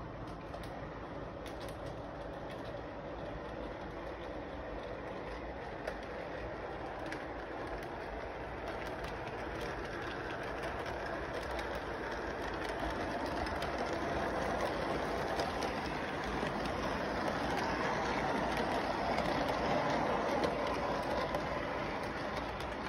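Electric model train running along its track, a steady rolling rumble with fine clicks from the wheels. It gets louder as the train comes closer, is loudest a little before the end, then drops back.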